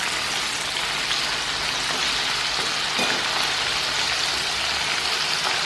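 Flour-coated chicken wings deep-frying in hot oil: a steady, even sizzle of the oil bubbling around the pieces.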